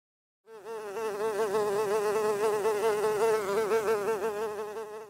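Housefly buzzing: one steady buzz with a rapidly wavering pitch that fades in about half a second in and tails off at the end.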